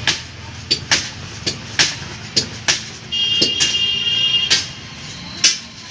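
Hand rasp scraping the rubber of a truck inner tube around a puncture in short, quick strokes, about two to three a second, roughening the surface for a patch. Midway a steady high tone sounds for about a second and a half.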